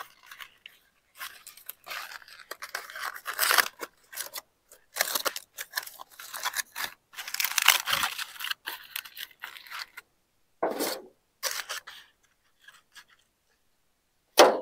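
Aluminium foil crinkling and tearing as it is peeled open from around a cooked chuck roast, in irregular rustling spells that thin out after about ten seconds. A sharp click near the end.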